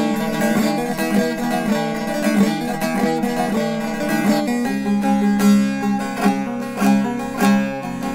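Short-neck bağlama (saz) with a mahogany bowl being played: a quick picked melody on ringing strings, which about halfway through settles into a steady repeated rhythm of strong, evenly spaced strokes.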